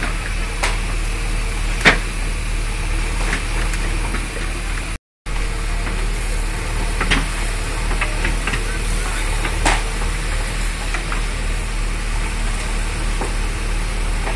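An engine running steadily under the hiss of water spraying from a fire hose, with a few sharp knocks. The sound drops out for a moment about five seconds in.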